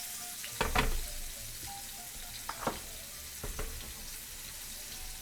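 Flour-dredged chicken breasts and sliced portobello mushrooms frying in hot olive oil in a pan, a steady sizzling hiss, with a few light knocks about a second in and again around two and a half and three and a half seconds.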